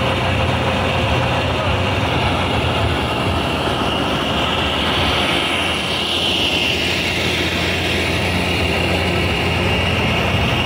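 PT-91M main battle tank's V-12 diesel engine running steadily: a heavy, even engine sound with a high whine over it that swells around the middle.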